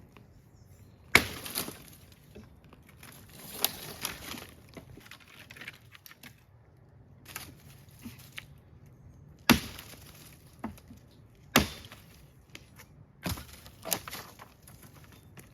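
Dry wood cracking and splintering as it is broken up for the fire: about half a dozen sharp cracks at irregular intervals, the loudest about a second in, with lighter crackling between them.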